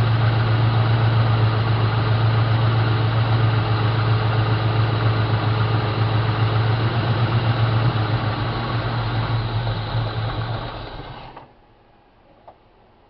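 Ford 4.6L V8 idling steadily, then fading and dying about eleven seconds in. The stall comes as the fuel pump cuts out and fuel pressure falls away, the sign of an open dropping resistor in the low-speed fuel pump circuit. A few faint clicks follow in the quiet.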